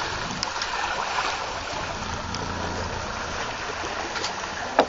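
Steady rush of water and wind as a Gemini sailing catamaran moves under sail at about 4 knots, with a sharp click near the end.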